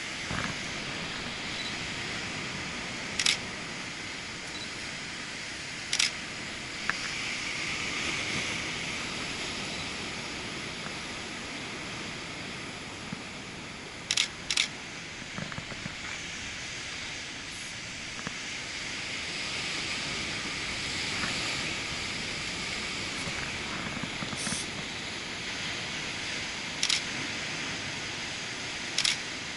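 Camera shutter clicking about six times at uneven intervals, two shots in quick succession about halfway through, over a steady rush of ocean surf.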